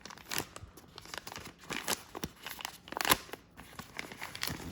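Packaging being opened by hand, crinkling and tearing in irregular rustles and crackles, loudest about three seconds in.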